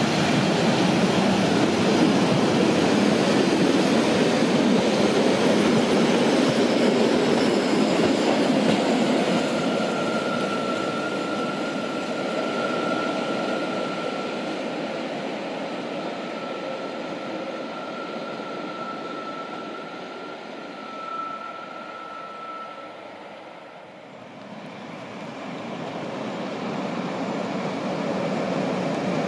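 Narrow-gauge railway coaches rolling past on the rails, then fading as the train draws away, with a thin steady wheel squeal on the curve from about ten seconds in. Near the end, a second train led by a Ge 4/4 I "Crocodile" electric locomotive approaches, its running noise growing louder.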